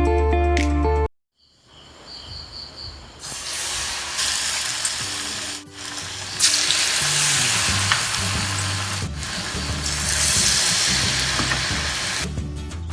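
Batter-coated banana fingers deep-frying in hot oil, sizzling steadily. The sizzle begins about two seconds in and jumps in level at a few edit cuts.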